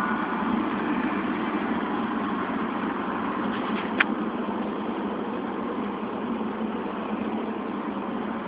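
Steady drone of a scratch-built foam RC flying wing's motor and propeller high overhead, heard as an even rushing noise that slowly fades. One sharp click about four seconds in.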